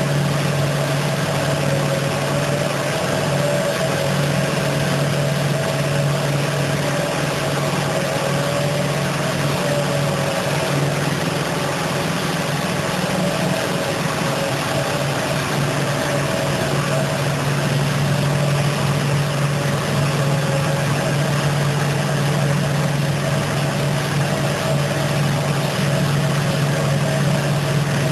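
Automatic carpet-washing machine running steadily: a constant motor hum with a fainter wavering whine above it, under an even hiss of water and foam being sprayed and brushed over the rug.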